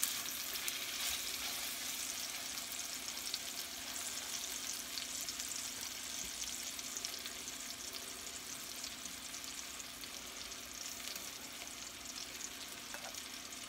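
Raw seasoned chicken pieces sizzling in a hot frying pan as they brown, a steady crackling sizzle that eases slightly toward the end.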